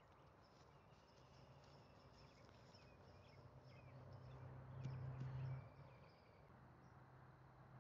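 Near silence: faint outdoor ambience with scattered small high-pitched chirps and a low hum that swells briefly around five seconds in.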